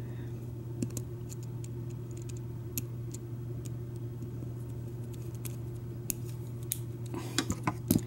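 Faint, scattered small metallic clicks and scrapes as a pin tool turns the brass screw-on cap of a Schlage Everest KIK lock cylinder, with a few more clicks near the end. A steady low hum runs underneath.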